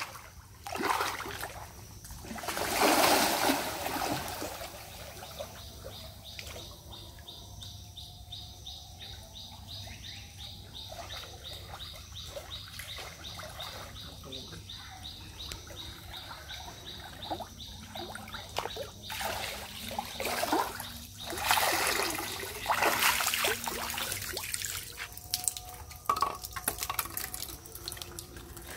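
Splashing and sloshing in shallow pond water, coming in several bursts, from someone wading through it.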